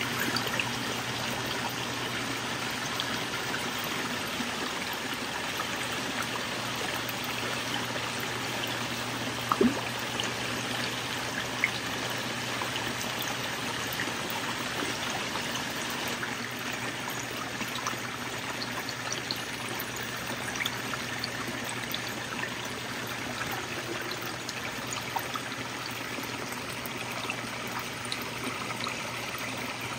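Steady running water trickling and splashing into a koi pond, with two brief faint clicks about ten and twelve seconds in.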